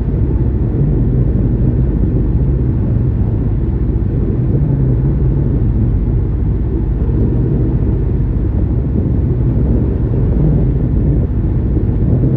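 A sailboat's engine running steadily while motoring through chop, heard as an even low rumble.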